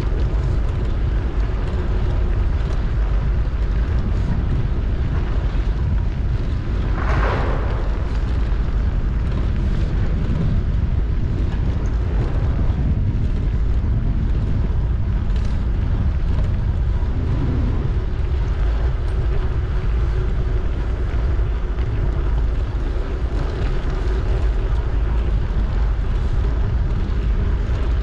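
Steady wind rumble on a bike-mounted action camera's microphone, mixed with bicycle tyres rolling over paving stones.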